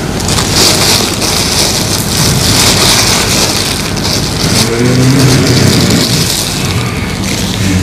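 A person growling and rasping loudly without words, with a deeper voiced groan that rises and falls about five seconds in.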